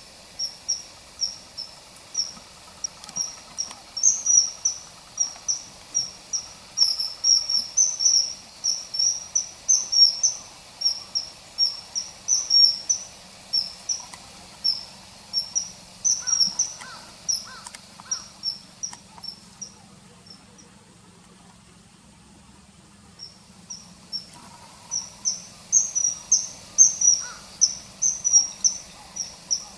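Common kingfisher calling: a series of short, high notes about two a second, breaking off for a few seconds past the middle and then resuming.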